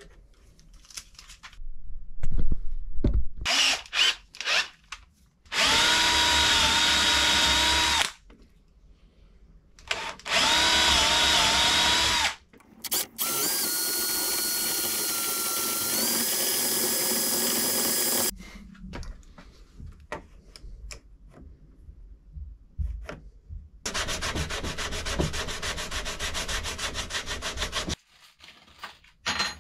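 Cordless drill boring into a softwood frame rail, in four runs of a few seconds each with a steady motor whine that starts and stops abruptly; in the third, longest run the whine steps up in pitch partway through. Knocks and clatter of handling come before the first run.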